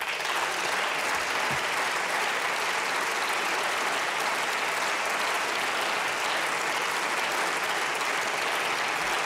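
Members of parliament applauding: a dense, steady round of clapping that starts abruptly as the speaker pauses.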